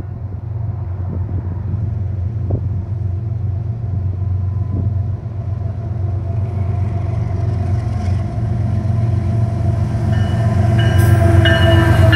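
An approaching Union Pacific freight train's diesel locomotives, a low engine rumble growing steadily louder. In the last second or two, as the lead units reach the rail beside the microphone, the wheels clank on the rail with thin high squeals.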